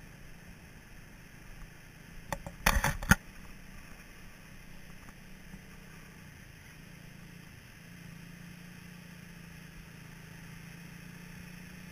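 Small off-road buggy's engine droning steadily at a distance over wind noise on the microphone. A quick cluster of loud knocks comes about two and a half seconds in.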